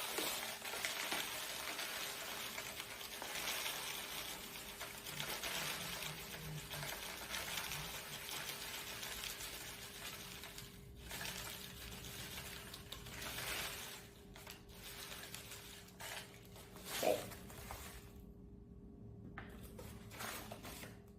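Dry rolled oats pouring from a packet into a bowl: a steady rustling hiss for about ten seconds, then shorter spurts.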